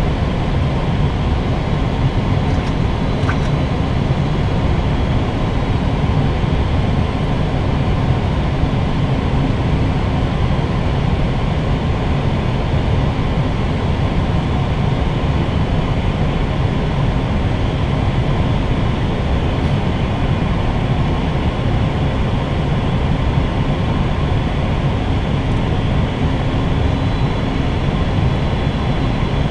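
Steady cockpit noise of an Airbus A320neo on final approach: a constant low rumble of airflow and engines with a faint hum.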